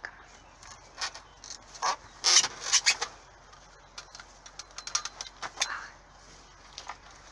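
Irregular crinkling, rustling and clicking of plastic bags and plant-basket sleeves being handled, in two bursts: about a second in, and again about four seconds in.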